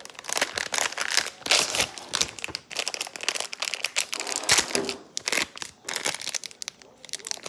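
Slime being kneaded and mixed with air-dry clay by hand: a dense, irregular run of sticky clicks, pops and crackles.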